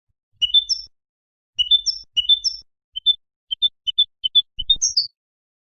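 European goldfinch singing: a few short twittering phrases in the first half, then a quicker run of separate high chirps ending in a sharp rising-falling note near the end.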